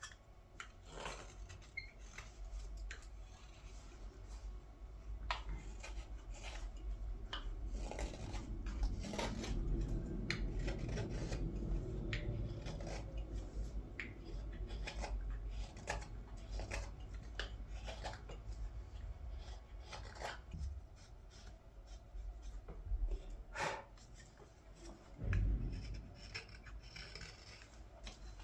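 A knife carving green wood by hand: a steady run of short slicing and paring cuts as the ladle's bowl is thinned, with rubbing and handling of the wood in between and a louder bump near the end.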